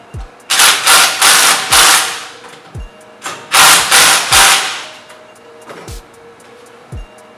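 Cordless impact driver hammering in short bursts as it runs in the fork clamp bolts on a scooter triple tree: two groups of about three quick bursts, the second about halfway through, then it stops.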